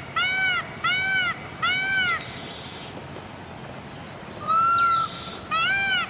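Indian peafowl calling: a run of short, repeated honking calls, each rising and falling, about one every 0.4 s, breaking off after about two seconds. A single longer, steadier call, the loudest, comes about four and a half seconds in, and the run of short calls starts again near the end.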